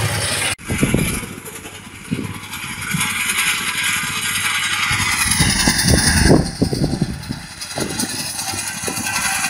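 Alfalfa mowing machine's engine running with a rattle. It cuts off abruptly about half a second in, then comes back as uneven low rumbling.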